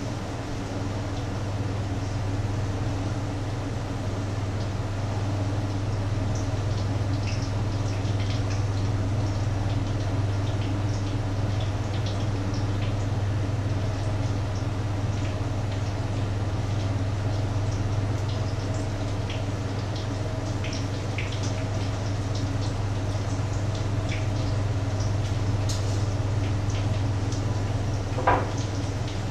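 Egg patties frying in a pan on an electric stove: scattered sizzling crackles over a steady low hum. A sharp clink near the end.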